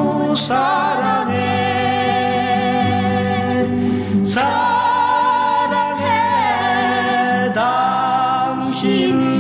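Korean pop-folk duet song: long, wavering sung notes over soft sustained backing music, a new sung phrase starting about every four seconds.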